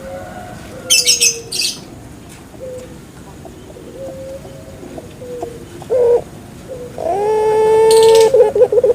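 Puter pelung dove (Streptopelia risoria) cooing: a few soft short coos, then about seven seconds in a long, loud held coo that breaks into a rapid trill. Two short high chirps come about a second in.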